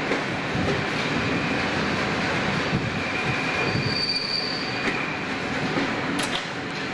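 Slam-door electric multiple unit running slowly along a station platform, heard from aboard the train: steady wheel and running noise, with a thin high wheel squeal a little after halfway and a sharp click near the end.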